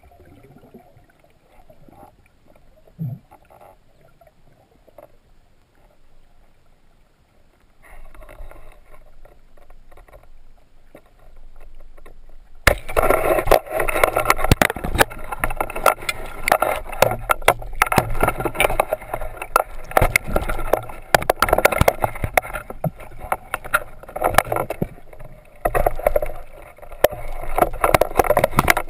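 Water moving and splashing, faint at first, then from about 13 seconds a loud, dense clatter of knocks and crackles in the water.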